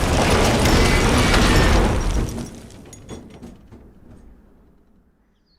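A big explosion booming and rumbling as railway track is blown up. The rumble holds loud for about two seconds, then dies away, with a few scattered clattering knocks of falling debris about three seconds in, fading to near silence.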